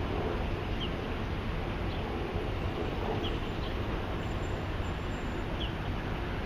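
Steady city street traffic noise, mostly low rumble, with a few faint short high chirps every two or three seconds.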